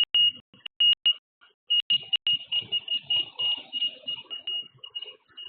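High-pitched electronic alarm beeping in short, broken pulses, with a brief pause about a second in before it carries on almost without a break. It sounds like a personal safety buzzer, the kind carried against gropers, which is what the listener first took it for.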